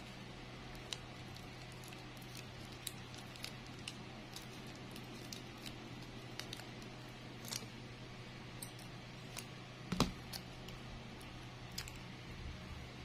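Faint crinkles and small ticks of plastic strip being handled and wrapped around a flower's wire stem, over a steady low hum. One sharper knock about ten seconds in.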